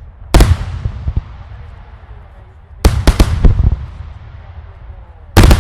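Loud daylight fireworks bangs, each followed by a long rumbling echo: one sharp bang about half a second in, a rapid cluster of four or five around three seconds in, and another bang near the end.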